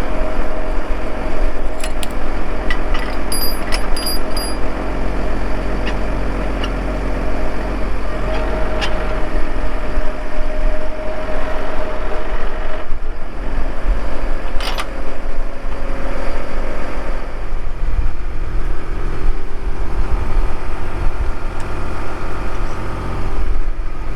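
A vehicle engine running steadily while driving, with a deep low rumble and a few sharp clicks along the way.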